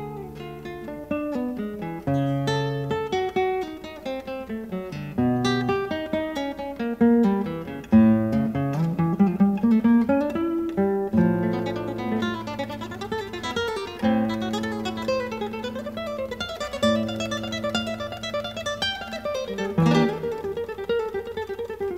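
Acoustic guitar music: plucked notes, chords and quick runs.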